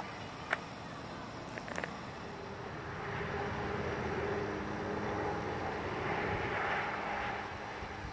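A motor vehicle going by: a steady hum that swells from about three seconds in and eases off near the end. A few small clicks in the first two seconds.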